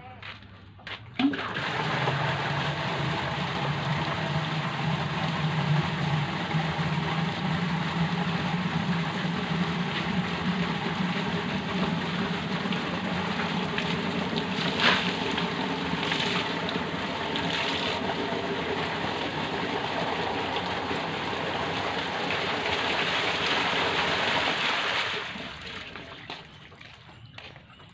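Water running steadily from a tap or hose into a container, with a low hum under the rush; it starts with a click about a second in and is shut off a few seconds before the end.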